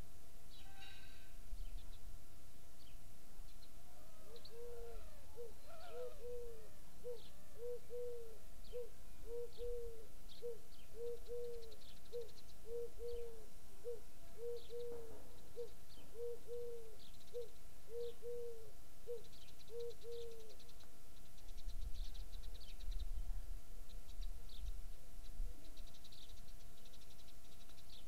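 A dove cooing: a long run of low, arched, evenly spaced notes, many in pairs, lasting about sixteen seconds before it stops. Small birds chirp with short high notes throughout, and a low rumble comes in a couple of seconds after the cooing ends.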